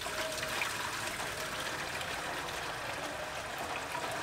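Water pouring in a steady stream from the long spout of a metal water can into a cooking pot that already holds water, trickling and splashing.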